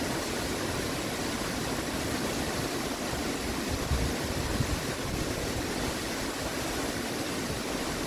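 A tall waterfall pouring down a rock face into its pool: a steady, even rush of falling water that does not change.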